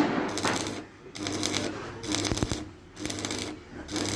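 Electric arc welding crackling in several short bursts, each under a second, as the arc is struck and broken, over the steady hum of the welding machine.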